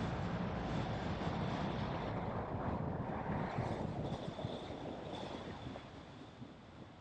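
Loud rush of vehicle and road noise that starts suddenly and dies away over the last few seconds.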